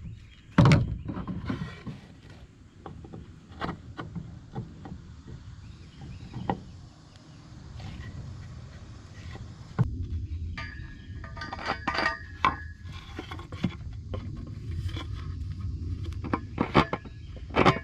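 Knocks and clatter of a wooden board and tools being handled, then a power drill whining for about two seconds partway through while a hole is drilled in the board.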